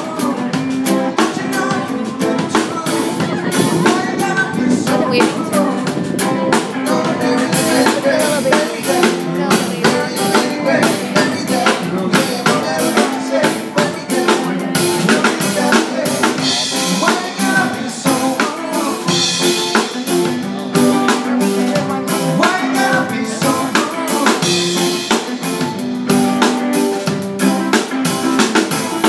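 A live band playing: electric guitars over a drum kit keeping a steady beat.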